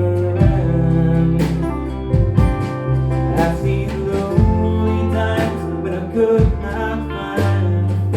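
Live band playing an instrumental passage: guitars over a steady, stepping bass line, with a sharp beat about once a second.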